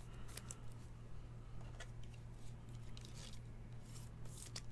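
Faint rustling and light clicks of a trading card being handled and slid into a soft plastic card sleeve, over a low steady hum.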